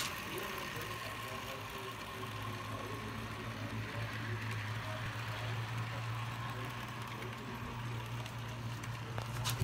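Model train cars rolling past close by on the track: wheels running on the rails with a steady low hum that swells in the middle as the cars pass, and a single click near the end.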